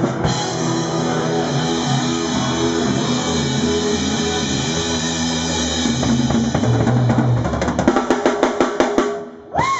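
Live rock band playing an instrumental passage: drum kit, electric guitar and bass. About eight seconds in it closes with a quick run of drum hits. Near the end comes a short tone that rises and then falls.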